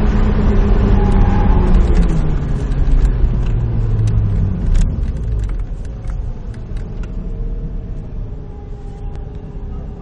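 Car engine, heard from inside the cabin, coming off high revs as the throttle is lifted at the end of an autocross run. Its note falls steadily as the car slows to a low-speed roll just above idle, with scattered light ticks over it.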